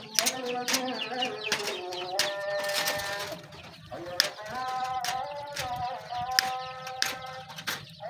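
Wire cutters snipping through wire mesh, a sharp click with each cut, repeated roughly every half second. A background melody with held notes runs underneath.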